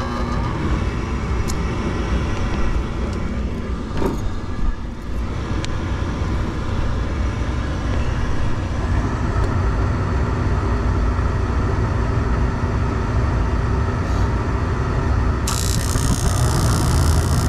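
Gas furnace running with its burners firing and the blower on: a steady low rumble with air noise above it. There is a single click about four seconds in, and a brighter hiss joins near the end.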